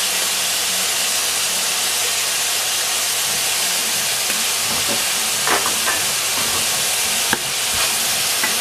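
Meat and vegetables sizzling steadily in a stainless steel frying pan over high heat. A few light knocks and scrapes from stirring come in the second half.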